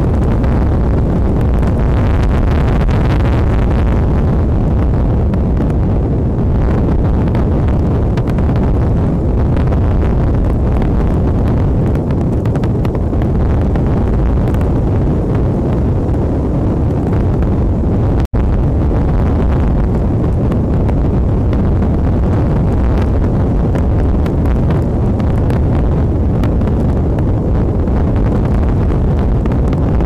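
Strong wind buffeting the outdoor nest camera's microphone: a loud, steady low rumble with gusts. The sound cuts out for an instant about two-thirds of the way through.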